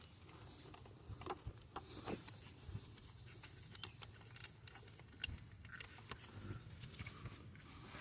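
Faint, scattered light clicks and taps of hand tools and parts being handled, over a low background rumble.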